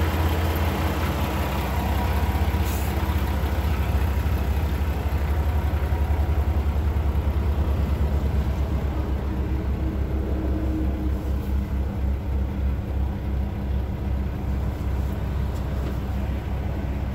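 The 510-horsepower PACCAR MX-13 diesel engine of a 2015 Peterbilt 579 idling steadily, heard from inside the cab as an even low drone.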